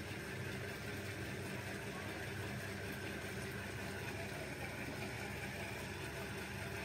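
Steady low hum of background room noise, with no clicks or knocks.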